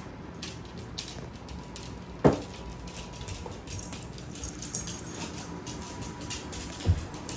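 Dogs playing on a wooden floor: scattered light clicks of claws and paws, with a loud short thump about two seconds in and another near the end.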